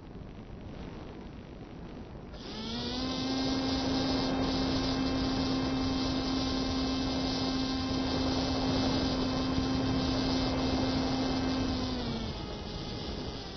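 A model airplane's motor throttles up quickly about two seconds in to a steady high-pitched hum, holds it for about ten seconds, then throttles back with a falling pitch near the end. A steady hiss runs under it throughout.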